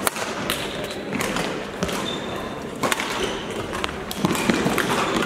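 Badminton rally: a shuttlecock struck back and forth by rackets, several sharp smacks about a second apart, echoing in a large sports hall over the murmur of play on neighbouring courts.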